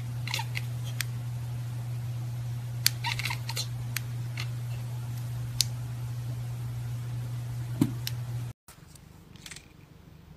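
Steady low hum with scattered sharp clicks, a small cluster of them about three seconds in; after about eight and a half seconds the hum cuts off and only faint ticks remain.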